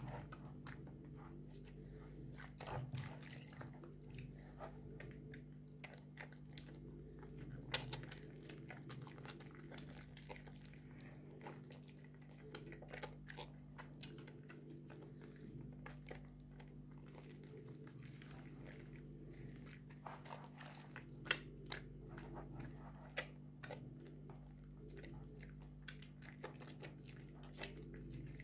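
Bars of soap squeezed and rubbed between wet hands in a basin of sudsy water: irregular squelching and crackling of lather. A faint steady low hum runs underneath.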